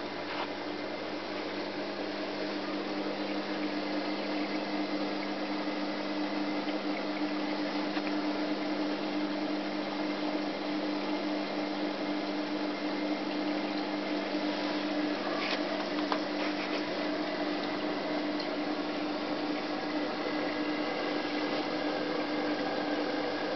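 Reef aquarium's equipment running: a steady rush of circulating water over an even electrical hum.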